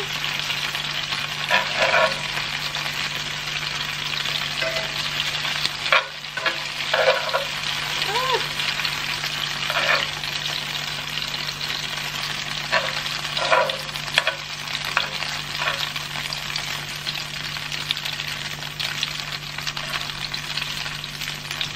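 Beef strips sizzling in hot oil in a frying pan, a steady frying hiss. Every few seconds metal tongs scrape and click against the pan as pieces are lifted out.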